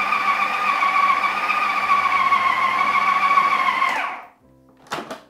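Food processor motor running at full speed, mixing vital wheat gluten and wet ingredients into a dough with its plastic blade, its pitch sagging slightly midway. It is switched off about four seconds in and spins down with a falling pitch, followed by a short knock near the end.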